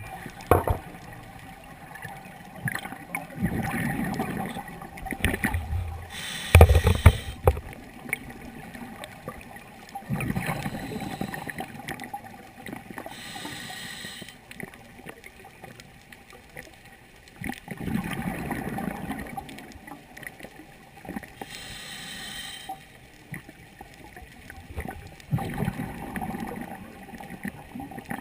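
Scuba regulator breathing underwater: a short hiss on each inhale, then a longer burst of rumbling exhaust bubbles on each exhale. It repeats slowly, about four breaths in all.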